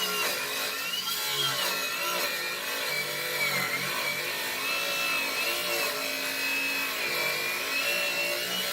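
Corded circular saw with a regular blade grinding through steel square tubing, with a high screech that wavers up and down in pitch throughout. The motor is bogging down under the load because the blade is not made for steel.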